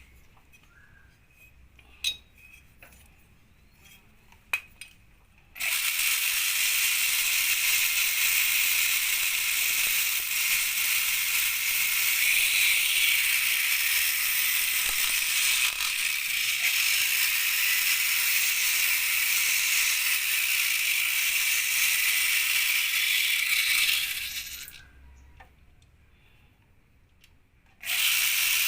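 A few light clicks and knocks, then a loud steady hissing jet that runs for about eighteen seconds and fades out. After a short quiet spell it starts again abruptly near the end.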